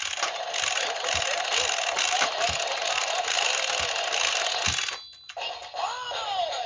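Electronic sound effects from a DX Gear Handle Blaster toy gun's small speaker as its ship's-wheel dial is turned to set off the finishing move. A dense hissing, whirring noise with soft knocks runs for about five seconds, breaks off, then a single swooping tone rises and falls.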